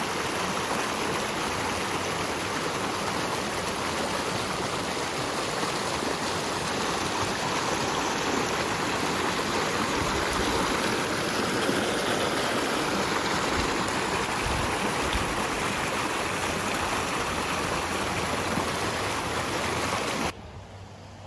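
Shallow mountain stream rushing and splashing over boulders and rock ledges, a steady, even rush of water that stops abruptly near the end.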